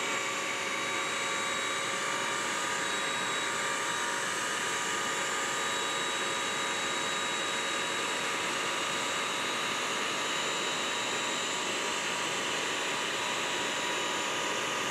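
BISSELL Crosswave wet/dry vacuum running steadily, its motor giving a constant whine over the rush of suction, as it scrubs up a dried-in chocolate mess from the floor.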